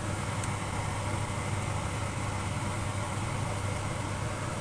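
Chicken wings boiling in Coke in a wok, a steady bubbling sizzle over a constant low hum.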